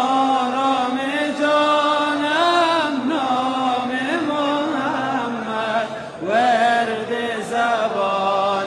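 A solo voice chanting a devotional nasheed in long, held, ornamented notes. A new phrase begins with a rising glide a little after six seconds.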